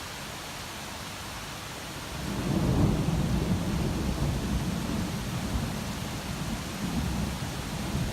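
Thunder during a rainstorm: a steady hiss of rain, then about two seconds in a deep rumble of thunder swells up, peaks a second later and keeps rolling.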